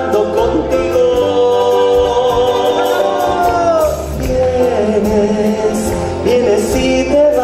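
Argentine folk song: singing over guitar-like plucked strings and a steady percussion beat.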